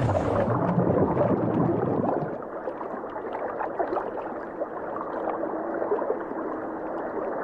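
Muffled underwater bubbling and gurgling, like divers' exhaled scuba bubbles, heavier for the first two seconds and then settling to a steady crackly wash. A brief hiss of rushing water comes right at the start.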